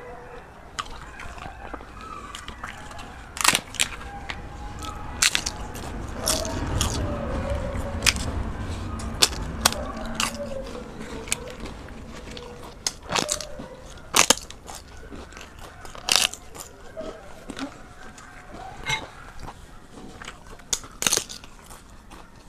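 Close-miked mouth sounds of eating by hand: chewing with wet lip smacks, and sharp crunches from bites of fried papad (papadum), repeated many times.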